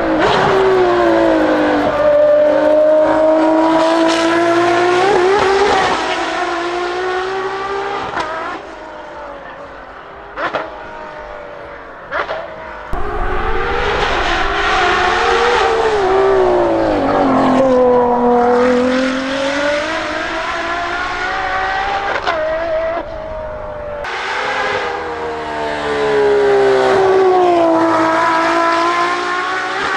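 Ferrari 599XX Evo's 6.0-litre V12 at high revs, its pitch repeatedly climbing and dropping through gear changes and throttle lifts, mixed with tyre squeal. Midway it falls quieter with two sharp cracks, then the V12 revs hard again.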